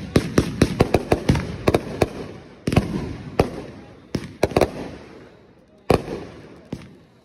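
Fireworks going off in a rapid string of sharp bangs for about the first two seconds, then single bangs at longer gaps, each with a ringing tail.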